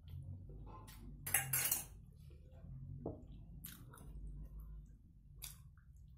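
Tableware and eating sounds: a steel bowl clatters as it is set down about a second in, the loudest moment. A few light clicks follow as fingers work chutney on a plastic plate and she eats. A steady low hum runs underneath.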